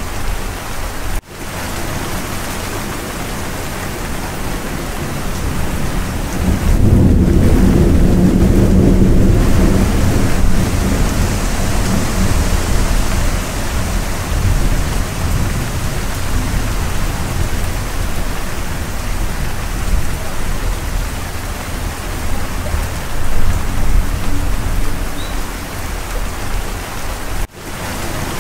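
Steady heavy rain with a low rumble of thunder that swells about seven seconds in and rolls on for a few seconds. The sound drops out for an instant about a second in and again near the end.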